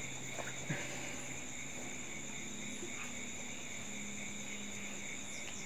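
Steady night chorus of crickets, a continuous high chirring, with a faint low hum underneath.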